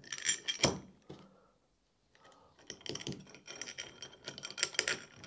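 Small metal bolts clicking and clinking against a metal carriage plate as they are slid into its holes and handled: a few clicks, a short quiet spell about a second in, then a run of quick light clicks.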